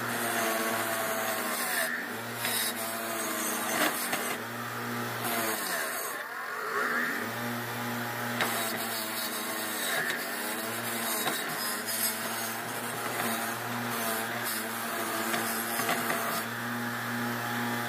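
Bench grinder running with a steady motor hum while a painted metal part is pressed against the spinning wheel to strip it. The grinding noise swells and eases with each pass, roughly every couple of seconds.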